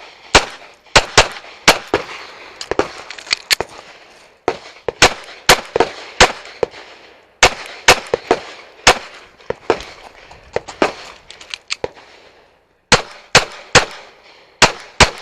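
Compact back-up pistol fired in rapid strings of two and three shots, with brief breaks between strings about four, seven and twelve seconds in.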